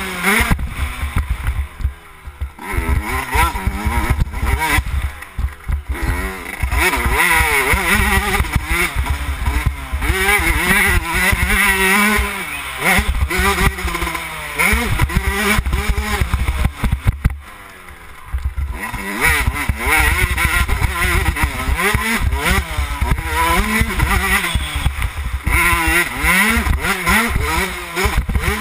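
2011 Yamaha YZ125's two-stroke single-cylinder engine being ridden hard, its pitch climbing and falling over and over as the rider works the throttle and gears. The engine drops off briefly a few times, longest about two-thirds of the way through. A steady low rumble of wind on the microphone runs underneath.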